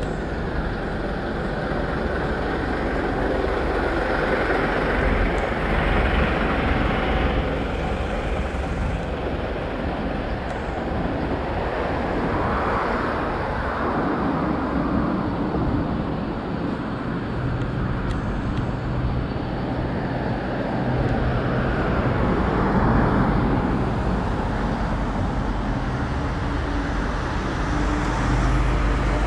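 Road traffic on a city street: vehicles passing in repeated swells, with a steady low engine hum through the middle and latter part.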